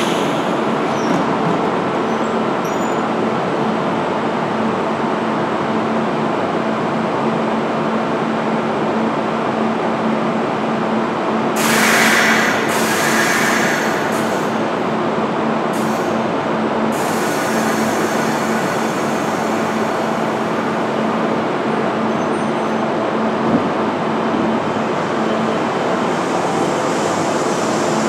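Kintetsu 'Snack Car' limited-express electric train standing at the platform with a steady electric hum. A loud hiss of air comes about twelve seconds in and a shorter one about sixteen seconds in, as the train readies to depart.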